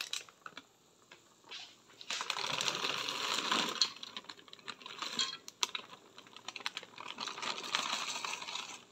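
Frozen cut green beans tumbling out of a plastic bag into an enamel pot: a dense patter of small clicks and rattles mixed with the crinkle of the bag, starting about two seconds in.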